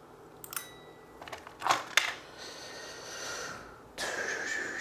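Small clicks and taps of tools and gun parts being handled on a workbench, with a couple of sharp clicks about two seconds in, then a steady rustling near the end.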